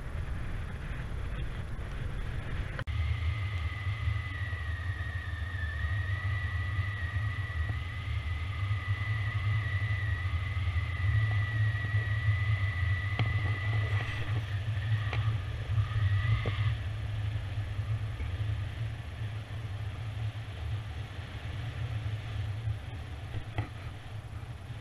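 Wind rushing over a camera microphone in paraglider flight, a steady low rumble, with a thin steady high whistle over it from about three seconds in until it stops near seventeen seconds.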